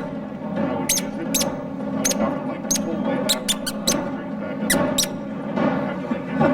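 A run of short, sharp, high-pitched squeaks at irregular intervals, one falling in pitch, over a steady low background murmur.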